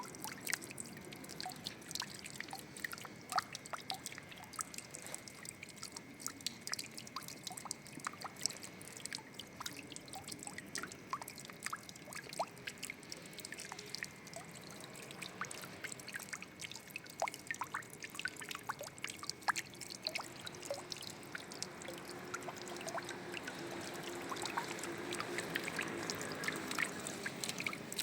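Water trickling and pouring, with many small drips and splashes scattered through it; it grows a little fuller near the end.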